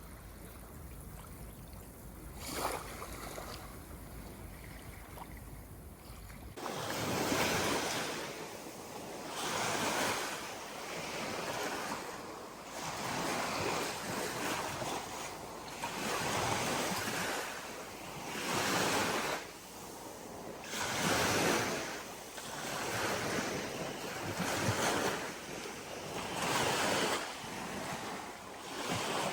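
Ocean surf, waves washing in with surges about every two seconds. For the first six seconds it is quieter, with low wind rumble on the microphone and one brief splash, then it changes abruptly to the louder rhythmic wash.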